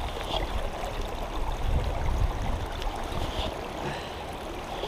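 A small, shallow stream running over rocks, with low rumbling and rustling from jacket fabric rubbing against the camera microphone during the first three seconds or so.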